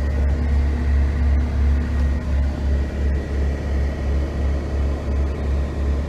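Cat 299D2 compact track loader's diesel engine idling at about 1,050 rpm, heard from inside the enclosed cab: a steady low drone with a faint high whine over it and a few light clicks.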